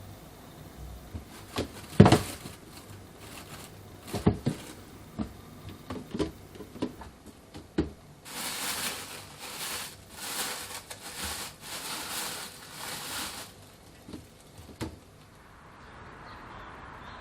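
Household handling sounds: a few sharp knocks and clacks of items being set down, the loudest about two seconds in, then a run of about six short rustling or scrubbing strokes in the middle.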